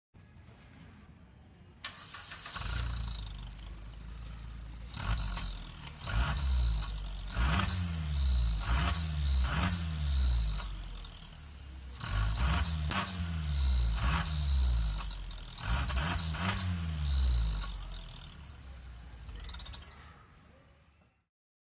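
Aftermarket turbo whistle on a vehicle's exhaust giving a steady high whistle over the engine's idle. It chirps higher with each of about ten quick throttle blips, in two bursts, and fades out near the end.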